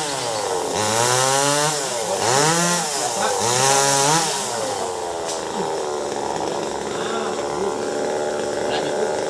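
Chainsaw engine revved up and back down three times in quick succession, then dropping to a steady idle about five seconds in.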